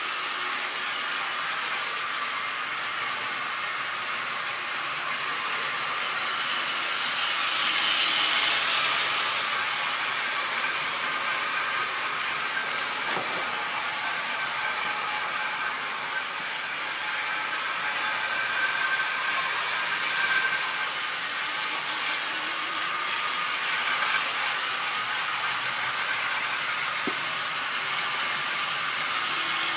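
Model railway train running on its track: a steady whirring hiss of the small locomotive motor and the wheels on the rails, swelling a little now and then as the train passes nearer.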